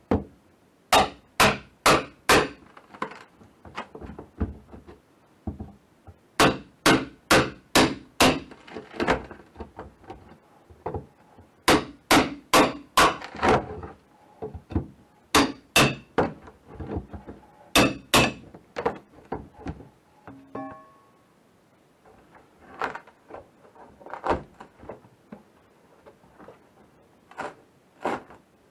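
Hammer blows against a drywall and paneling wall, coming in quick runs of three to six sharp strikes about two a second with short pauses between, as the wall is knocked loose for tear-out. Fewer, quieter knocks follow in the last several seconds.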